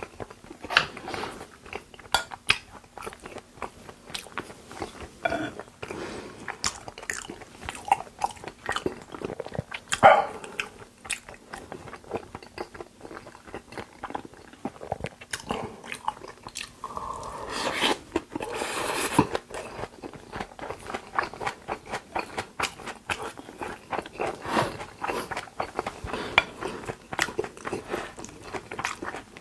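Close-miked chewing and wet mouth sounds of a person eating Korean raw beef dishes: irregular smacks and clicks, with a louder, noisier stretch a little past the middle.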